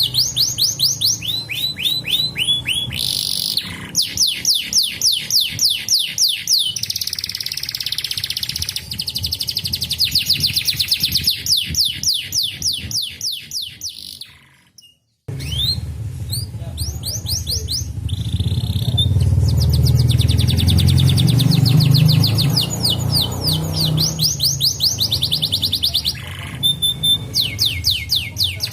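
Domestic canaries singing in fast rolling trills: long runs of rapid, repeated notes that sweep down in pitch, at about ten notes a second. Halfway through the song cuts out for about a second, then starts again.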